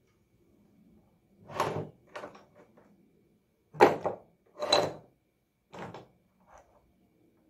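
Metal engine-governor gears and parts being picked up and set down on a wooden workbench: a series of separate clanks and clatters, the loudest about four seconds in.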